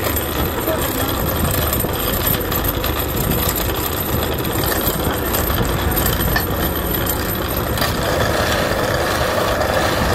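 Wood lathe running steadily. About eight seconds in, a chisel bites into the spinning wooden blank and adds a rougher scraping cut over the hum.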